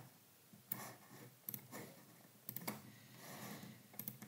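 A few faint, scattered computer mouse clicks over quiet room tone.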